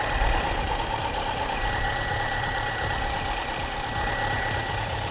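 Kawasaki Z900's inline-four engine running steadily while the motorcycle is ridden at an even pace, heard from the rider's helmet camera with road and wind noise. A thin, steady whine sits over a low rumble.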